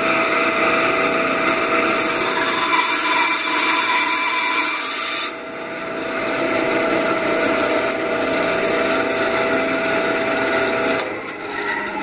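Craftsman 10-inch bandsaw running with a steady hum. From about 2 to 5 seconds in, the blade cuts into a wooden block, adding a hissing sawing sound. Near the end the motor's pitch falls as the saw winds down.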